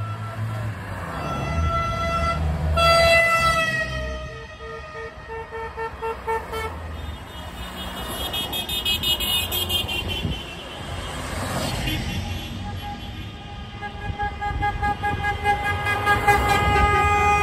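Car horns honking from a line of passing vehicles, over their engines. A long blast is followed by a run of quick short beeps about three a second, and a long steady horn is held near the end.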